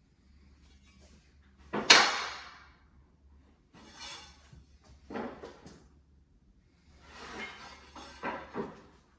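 Knocks and clunks from handling building material: one sharp knock about two seconds in, then several quieter clunks and scuffs.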